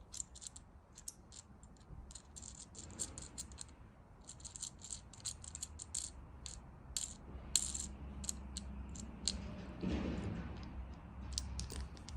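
Parts of a phone mount's arm being unscrewed and handled: irregular light clicks and rattles, with a slightly fuller handling noise about ten seconds in.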